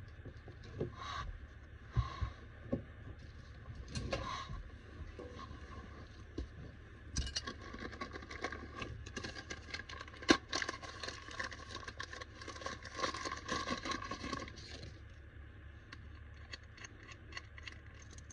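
Hands handling radiator valve fittings and a plastic valve cap: scattered small clicks and scrapes, with a denser run of crackling and rustling in the middle and one sharper click about halfway through.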